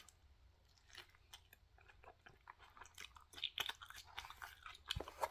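A person chewing a mouthful of fish taco, with irregular small crunches and wet mouth clicks.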